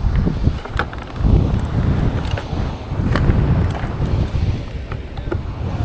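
Wind buffeting the microphone, a gusty, uneven rumble, with a few faint sharp ticks.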